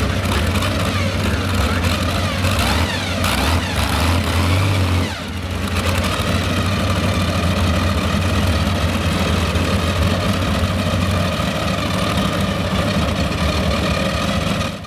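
Modified pulling tractor's twin supercharged engines running at idle, blipped a few times about three to four seconds in, with a brief dip in level about five seconds in.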